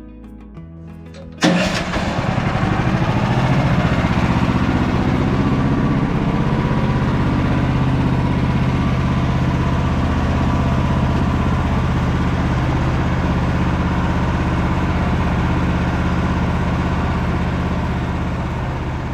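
An engine starts abruptly about a second and a half in, then runs steadily at an even speed, easing off slightly near the end. Music plays briefly before it starts.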